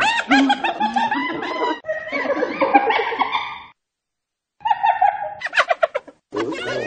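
Hyena laughing: rapid chattering runs of high, pitched giggling notes. The first run lasts about three and a half seconds, then after a short pause two more bouts follow.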